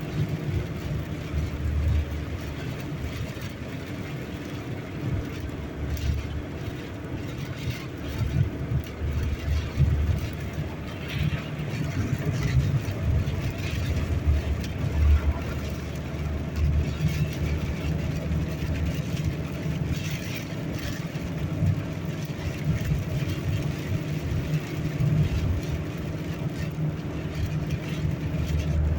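Car in motion heard from inside the cabin: a steady engine and road drone, with irregular low surges as strong gusts of wind buffet the car on open ground.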